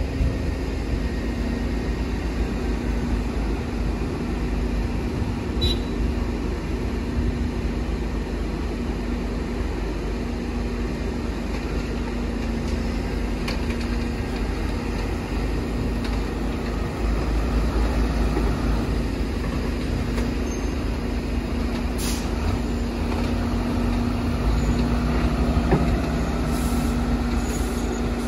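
Diesel engine of a UD Trucks (Nissan Diesel) dump truck running steadily: a low rumble with a constant hum, getting a little louder a bit past halfway.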